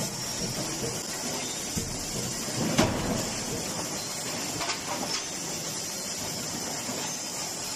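C92K-125 fully hydraulic closed die forging hammer working a hot cross-shaft forging: a steady hiss with one heavy blow and low rumble about three seconds in, then a couple of lighter metal clanks about five seconds in.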